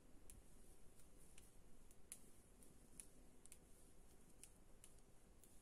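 Faint, irregular clicks of metal circular knitting needles tapping together as stitches are knitted, roughly one or two a second.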